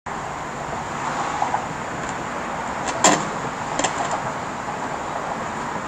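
Steady outdoor street background noise, with a sharp knock about three seconds in and a lighter one just under a second later.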